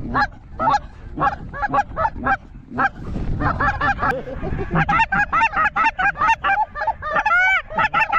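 A flock of wild geese calling overhead: a steady chorus of many overlapping honks, growing busier in the second half. A low rumble passes briefly a few seconds in.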